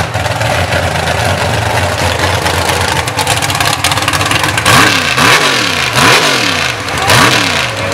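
Mega truck's engine running at a rough idle, then revved hard about four times from about five seconds in, each rev rising and falling in pitch.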